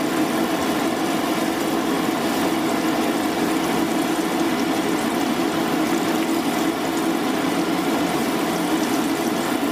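Batter-coated jackfruit pieces frying in hot oil in a pan, a steady sizzle over a steady low hum.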